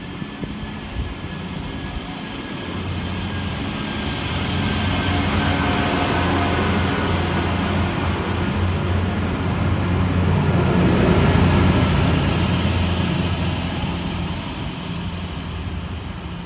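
SA136 diesel multiple unit passing through the station without stopping. Its engine hum and running noise rise as it comes alongside, stay loud with a high whine near the middle, and fade as it pulls away.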